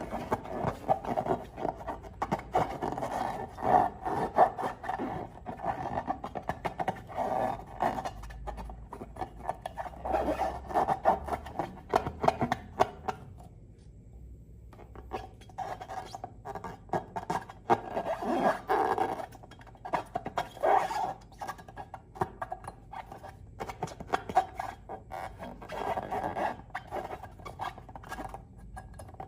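Slime being squished and stretched by hand, giving a dense run of sticky crackling clicks and squelches, with a short pause about halfway.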